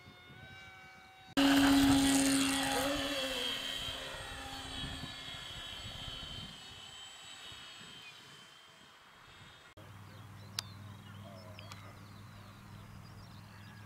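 Radio-controlled model airplane's motor and propeller, suddenly loud as it passes close, its pitch dropping a little and then fading over several seconds as it flies away. Near the end a quieter steady low hum with a single click.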